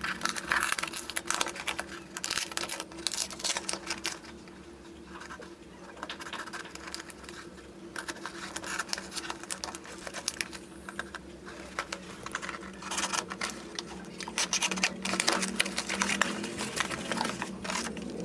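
A plastic-wrapped cardboard parcel being slit with a small blade and torn open by hand: irregular crinkling, ripping and scratching of the plastic wrap and cardboard, with a faint steady hum underneath.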